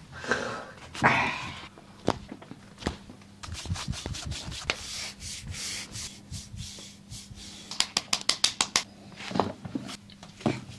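Hands rubbing and working over a person's body during a massage, with scattered sharp clicks and, about eight seconds in, a fast run of about ten crackling cracks in roughly one second. A short breathy rush about a second in is the loudest moment.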